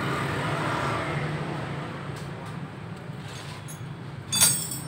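Steady low hum of vehicle engines or traffic, with a single sharp clank that rings briefly near the end.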